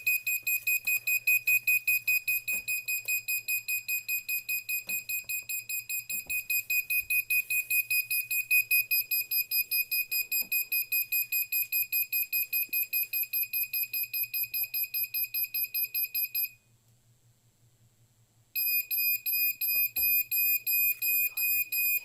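Arduino-driven piezo buzzer beeping in a fast loop: one high, unchanging pitch pulsed several times a second. It stops about sixteen seconds in and starts again two seconds later.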